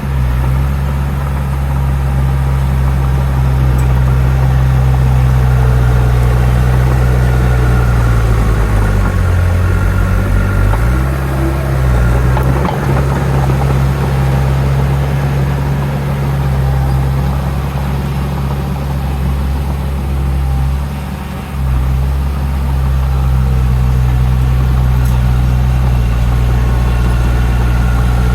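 Diesel engine of heavy earthmoving machinery running steadily, with a deep hum; its pitch drops and shifts about ten seconds in and dips briefly about two-thirds of the way through.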